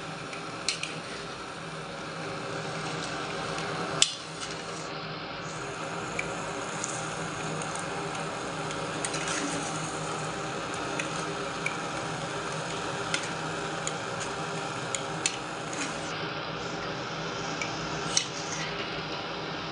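Chicken with tomatoes and spices frying in a metal pot, a steady sizzle, while a spoon stirs it and knocks against the pot every second or two. The loudest knock comes about four seconds in.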